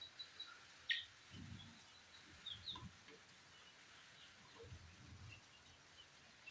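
Young kienyeji chickens roosting on a perch, giving soft scattered peeps and chirps, with one sharper, louder peep about a second in. Two brief low rumbles come in along with the calls.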